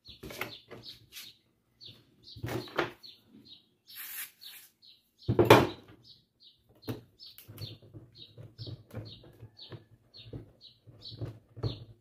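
Pliers gripping and twisting the hub of a plastic fan blade to pull it off the motor shaft, giving irregular clicks and knocks; the loudest knock comes about five and a half seconds in. A bird chirps steadily two to three times a second.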